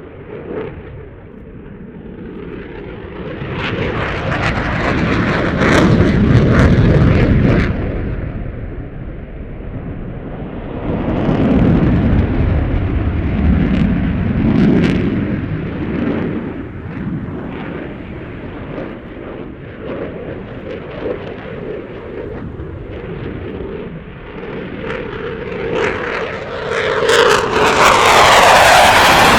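Display aircraft flying past repeatedly, its engine noise swelling and fading several times. The loudest pass comes near the end, with the pitch sliding down as it goes by.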